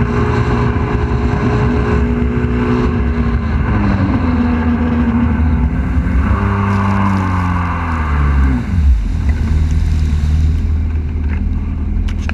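Jet ski engine running at speed with water rushing against the hull. About six seconds in, its pitch slides down over a couple of seconds and settles to a lower, steady note as it slows.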